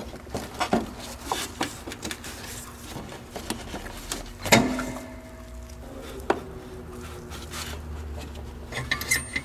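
Rubbing and scattered plastic clicks as a gloved hand works the rubber dust boot off the back of a car headlight housing, with one louder clack about halfway through and another a couple of seconds later.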